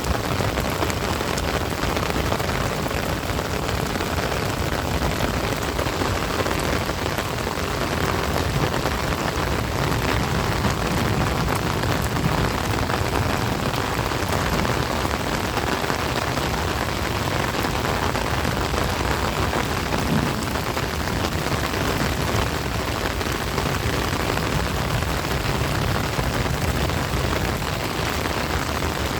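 Heavy rain falling steadily, a dense even hiss of drops spattering on hard surfaces.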